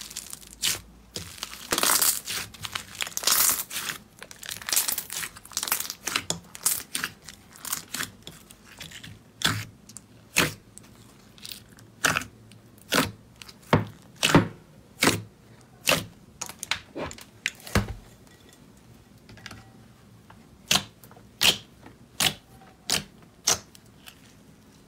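Thick white slime being pressed, kneaded and stretched by hand, crackling and popping. Dense crackling comes first, then single sharp pops about once a second, thinning out to a few pops near the end.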